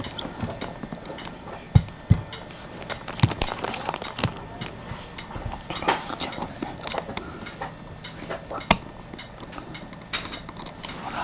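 Scattered clicks and taps of fingers and a thin tool working the brass-cased rotary switch of an electric blanket control on its circuit board, with a few dull knocks in the first few seconds.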